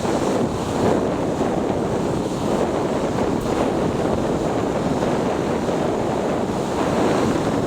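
Surf breaking on a sandy beach, mixed with steady wind buffeting the microphone.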